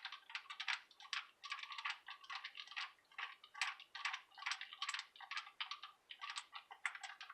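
Rapid, irregular light clicking in quick runs: screws being worked with a hand screwdriver into the plastic housing of a desoldering pump.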